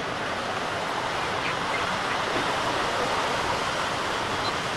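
Steady rushing noise of low North Sea surf breaking on a sandy shore, mixed with wind on the microphone.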